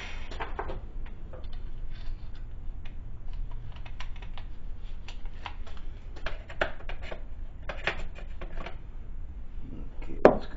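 Scattered light clicks and taps of small metal tools and parts being handled on a workbench, with one sharper knock near the end.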